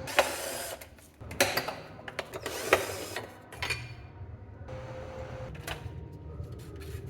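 Hand work on a car headlight: a series of sharp clicks and knocks with scraping between them as parts and tools are handled, over a steady low hum.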